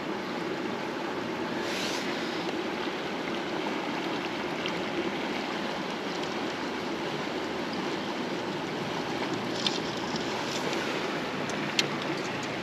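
Small creek water running steadily over rocks, an even rushing hiss, with a couple of faint clicks near the end.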